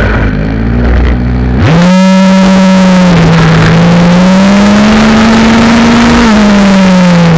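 Gas two-stroke engine of a Rampage MT Beast RC monster truck, heard close up from on board. It runs low off the throttle for about a second and a half, then revs up sharply and holds at high revs for about four and a half seconds while the truck drives, easing off near the end.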